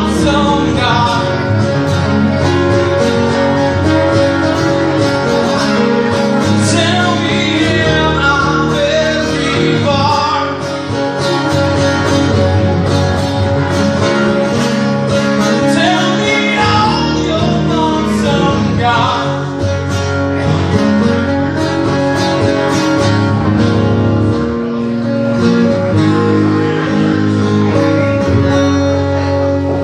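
Live acoustic band: two acoustic guitars strumming while a man sings into a microphone, amplified through a PA.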